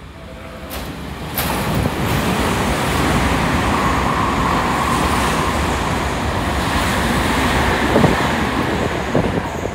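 Ten-car Tokyu electric train, set 4111F, running through a station at high speed without stopping. The rush of wheels and air rises sharply as the front reaches the platform, about a second and a half in, holds steady while the cars go past, and eases near the end.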